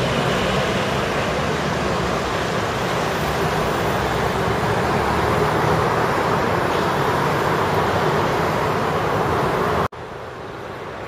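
Steady street traffic noise, vehicles running and passing close by. It cuts off suddenly near the end, leaving quieter, more distant traffic.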